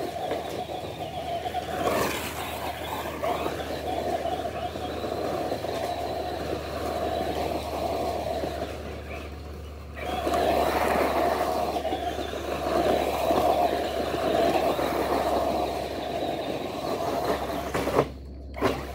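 Traxxas RC car spinning donuts on grass: the motor whines up and down in waves as it circles, over the churn of tyres tearing through turf and leaves. The sound drops away near the end, followed by two sharp knocks.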